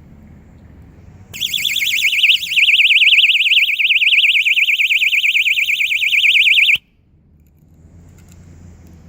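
Keychain personal security alarm rated at 120 dB going off: a very loud, high-pitched, fast warbling siren tone. It starts about a second in and cuts off suddenly about five seconds later.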